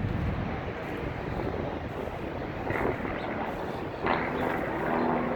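Steady rumble of a vehicle or passing traffic, with a low engine-like hum setting in about four seconds in.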